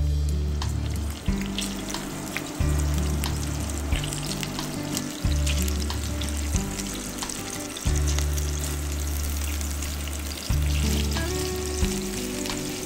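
Cabbage-and-minced-meat patties sizzling in hot oil in a frying pan, with small crackles and pops, over background music.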